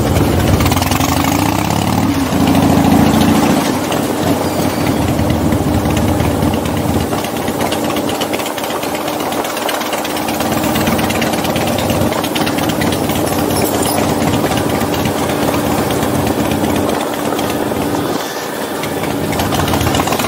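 V-twin motorcycle engine running at low road speed: the revs climb and shift in the first few seconds, then settle into a steady, even run.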